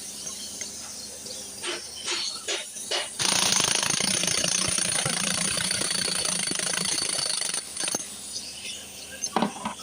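A few short knocks, then a loud rapid mechanical hammering rattle that starts suddenly about three seconds in, runs for about four and a half seconds and stops abruptly.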